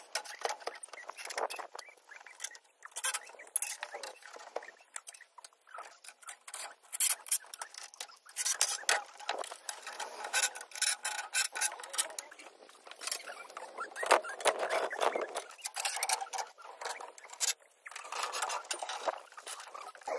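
Steel scaffold tubes and couplers clinking and knocking against one another, a rapid, irregular run of short metallic clicks and clanks as tubes are handled and fixed into the frame.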